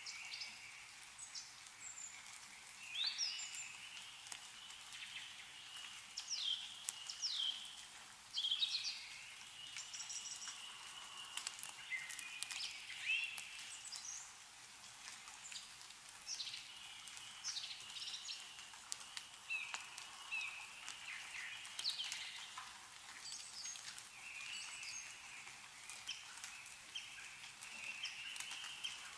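Several small songbirds chirping and singing in quick, overlapping calls and short sweeping notes, over a steady outdoor background. Faint scattered ticks of meltwater dripping from snowy trees run beneath them.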